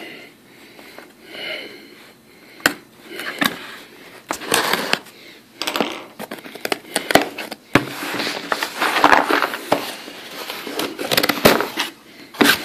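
A cardboard shipping box handled on a hard desk: scraping and sliding sounds with scattered sharp knocks and clicks as it is turned over.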